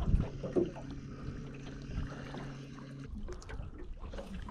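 Electric trolling motor humming steadily while the boat is moved into position, cutting off about three seconds in, with water lapping against the hull.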